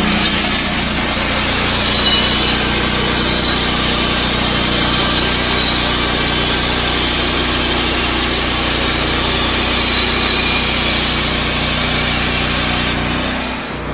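Engine-driven band sawmill running steadily, its blade cutting through a log: a constant engine hum under a dense sawing hiss. The sound dips briefly near the end.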